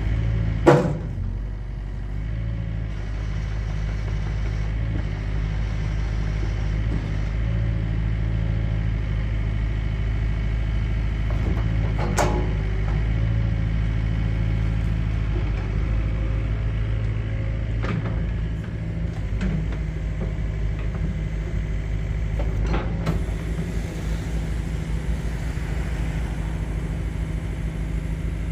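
Yanmar B50-2 mini excavator's diesel engine running steadily while the boom, arm and bucket are worked and the upper structure slews round. A few sharp knocks stand out, the loudest about a second in and others further on.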